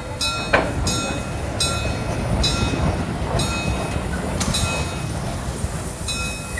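Prussian P8 steam locomotive moving slowly: a low rumble with a short hissing beat about once a second, slowing slightly. There is a sharp metallic clank about half a second in and another later.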